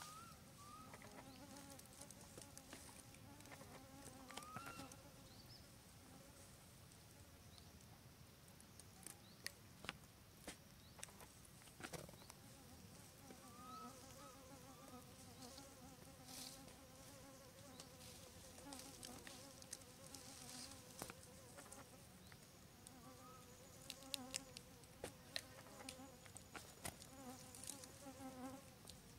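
Faint buzzing of a flying insect, a wavering hum that fades in and out as it moves about, with scattered faint clicks.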